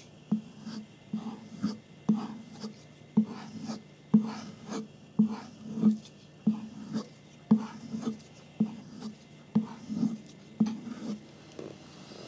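Knife blade being stropped: short rubbing strokes back and forth along a strop, about two a second, touching up a convex edge.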